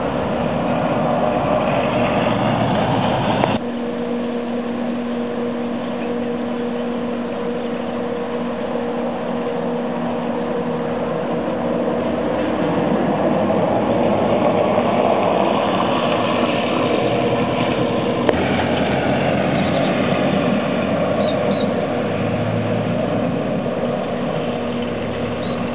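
Steady outdoor noise, an even hiss with a faint low hum under it, of falling wet snow and rain. It changes abruptly about three and a half seconds in, and again at a short click near eighteen seconds.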